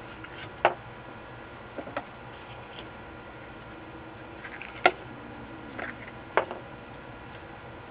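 A few sharp light clicks and taps from a circuit board and a soldering iron being handled on a workbench, the loudest about five seconds in, over steady faint room hiss.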